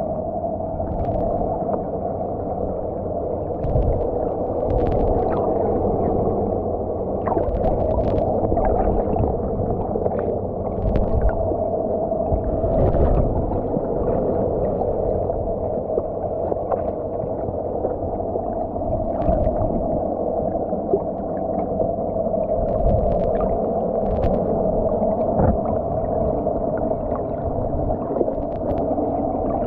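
Underwater sound picked up by a submerged camera: a muffled rumble with a steady hum, sprinkled with scattered clicks and crackles.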